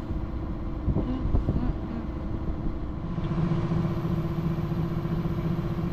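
Sailboat's engine running steadily under way at about 1800 rpm, with wind rushing over the microphone. About halfway through, a steady engine hum comes up more clearly.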